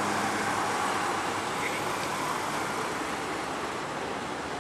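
Steady road traffic noise from the highway, slowly fading a little.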